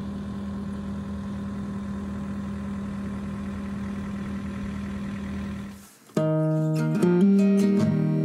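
Diesel engine of heavy construction equipment running at a steady speed, a constant low hum. It cuts off about six seconds in and acoustic guitar music begins.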